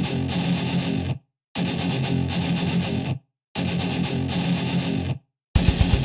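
Intro music: three sustained, distorted electric guitar chords, each cut off by a short silence, then a fast drum beat comes in near the end.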